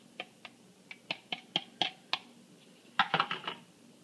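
A metal utensil tapping and scraping inside a small plastic bowl to get melted butter out onto dough: about eight sharp clicks, then a louder quick clatter about three seconds in as the bowl is set down.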